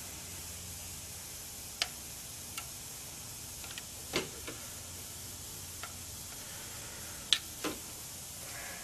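Scattered light metallic clicks and taps, about seven in all, of a box-end wrench, screwdriver and feeler gauge on the valve rocker-arm adjusters of a Honda Civic engine while the valve lash is being set, over a steady hiss.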